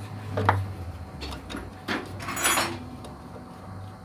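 Parts and tools being handled during hands-on repair work: a sharp knock, another about a second and a half later, and a short scraping rustle, over a low hum that drops out for a couple of seconds.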